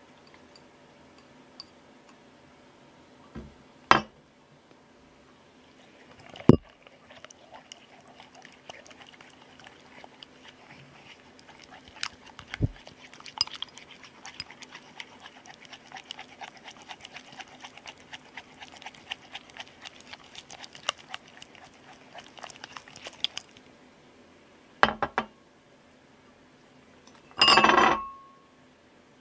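Slime mixture of laundry glue and borax being stirred in a ceramic bowl with a thin wooden stick: a long run of small clicks and wet ticks of the stick against the bowl. A few sharp knocks come before the stirring, and near the end the bowl is set down on the glass tabletop with a loud clunk that rings briefly.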